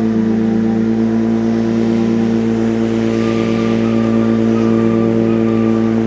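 Corded electric lawn mower running with a steady hum.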